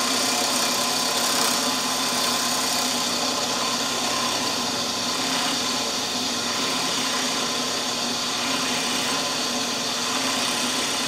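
Milling machine running steadily, its end mill taking a light finishing pass along a wooden banjo bridge blank held in a jig.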